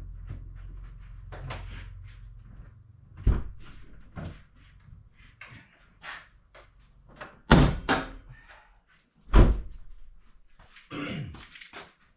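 A truck's door being handled and shut: a low steady hum stops about three seconds in, then come scattered knocks and two loud heavy thuds about two seconds apart, with smaller clatter between them.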